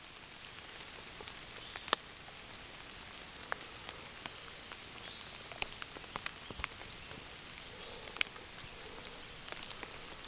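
Light rain falling on forest leaves and leaf litter: a steady soft hiss with scattered sharp drops striking at irregular moments.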